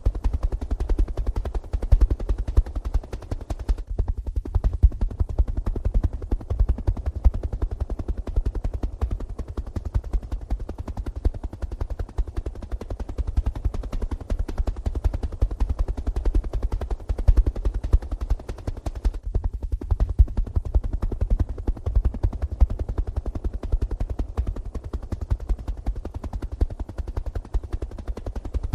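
Loud, continuous low rumble with dense, irregular crackling.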